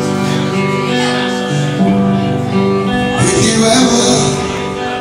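Live band playing an instrumental intro, electric guitar and bass over drums, with a burst of cymbal about three seconds in.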